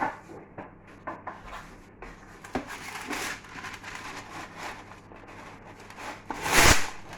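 Kitchen handling sounds: scraping and rubbing with several light knocks, and one loud rasping rustle a little before the end.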